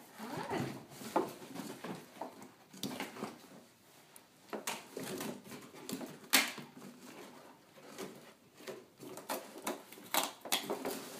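Scattered knocks, clicks and rustles of hard plastic toy parts being handled, with one sharper click about six seconds in.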